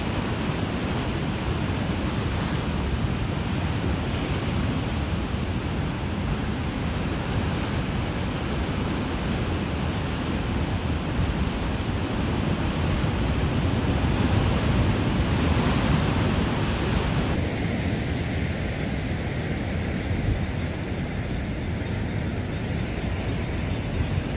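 Rough sea breaking over rocks in strong wind: a steady, unbroken rush of surf and wind, a little duller for the last several seconds.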